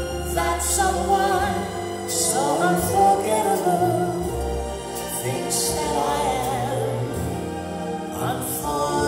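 Recorded vocal music played back over a Bose S1 Pro portable PA speaker: sung vocals with a wavering vibrato over sustained low bass notes.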